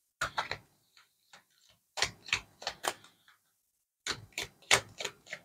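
Tarot cards being shuffled and handled, giving three short bursts of sharp clicks and snaps a second or two apart.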